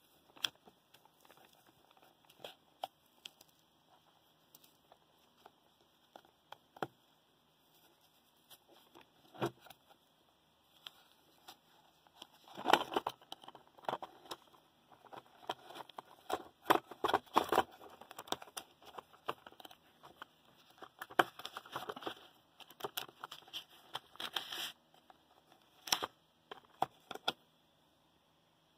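Rustling, crinkling and small clicks of fibrous white wadding and wrapping being pulled and torn away from a Stirling engine's metal plate. Sparse clicks at first, then a dense stretch of rustling and tearing from a little before halfway to near the end, then only a few clicks.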